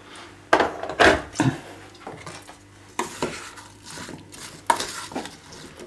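Wooden spoon stirring diced apple pieces in a stainless steel saucepan, knocking and scraping against the pan with a string of sharp clacks. The apples are stewing down into apple sauce.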